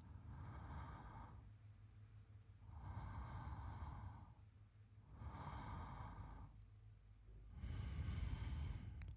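A man breathing slowly and audibly, as in sleep: four unhurried breaths about every two and a half seconds, the last one the loudest.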